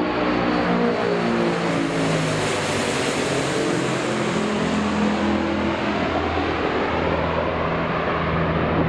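Contra-rotating propellers and turboprop engines of a large four-engine Antonov transport aircraft passing low overhead: a steady deep propeller hum over an engine hiss, the hum shifting in pitch a couple of times.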